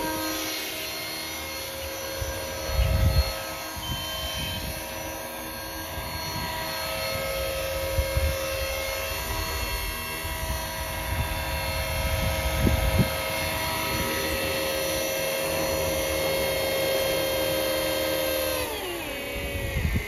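Electric RC helicopter on Trex 450 mechanics (3S pack, 40A ESC): the brushless motor, gears and rotor whine steadily at several pitches. Near the end the whine falls in pitch as the rotor spools down. Gusts of wind rumble on the microphone a few times.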